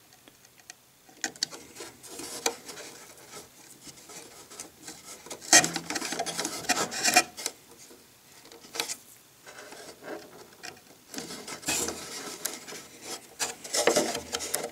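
Pin vise being twisted by hand, its small bit drilling pilot holes into a plywood servo tray: scratchy rasping in uneven spells with short pauses. It starts about a second in.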